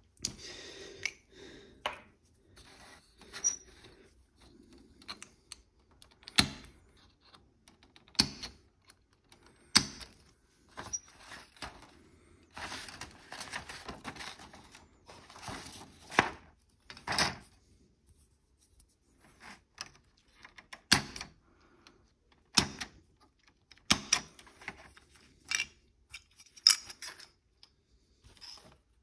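Hard plastic model-kit sprue frames being handled and set down on a cutting mat: about a dozen sharp, irregular clicks and clacks, with a longer spell of rattling and rustling about halfway through.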